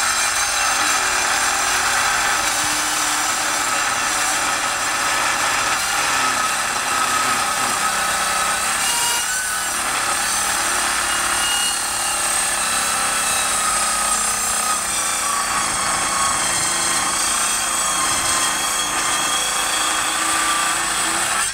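Hilti SCM 22-A cordless metal-cutting circular saw running under load, cutting through 32 mm steel rebar: a steady, even sawing noise with a few thin high tones. It cuts off abruptly at the end.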